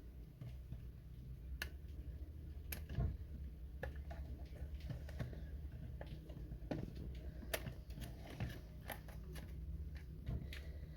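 Scattered light clicks and taps as multimeter probes are worked onto the terminals of a start switch, over a low steady hum.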